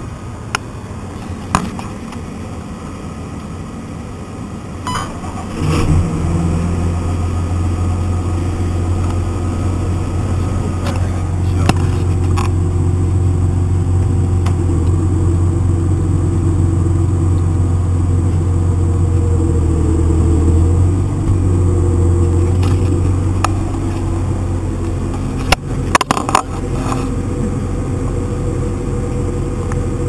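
Case IH Magnum 305 tractor's diesel engine heard from inside the cab, running quietly and then rising about six seconds in to a louder, steady low drone that holds. A few sharp clicks and knocks sound over it, several together near the end.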